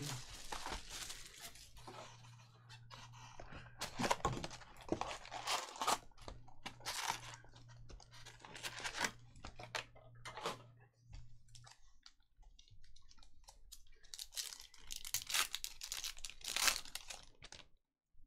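Trading card packaging being torn open by hand: wrappers and box wrap tear and crinkle in repeated short bursts.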